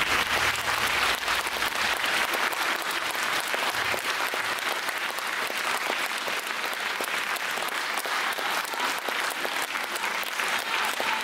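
Audience applauding steadily after a song ends, with the last low notes of the music dying away in the first second.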